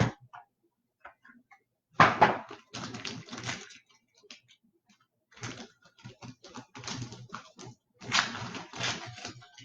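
Trading cards being handled: a run of short taps and clicks as cards and packs are sorted, with low mumbled speech before and after.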